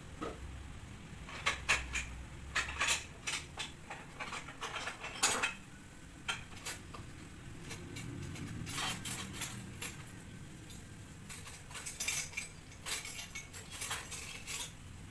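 Dishes and cutlery clattering as a bowl is fetched from among other crockery: irregular clinks and knocks coming in several clusters.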